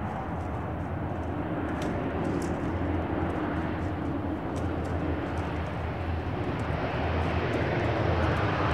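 De Havilland Canada Dash 7 four-engine turboprop aircraft running with a steady low engine and propeller drone, growing gradually louder toward the end.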